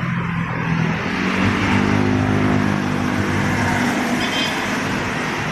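Road traffic passing close by: a car goes past, then a light-duty box truck's engine drones as it passes, loudest about two seconds in and easing off near the end.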